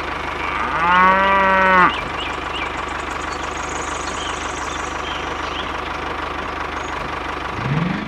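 A cow moos once, loudly, about a second in, over the steady low rumble of a tractor engine running.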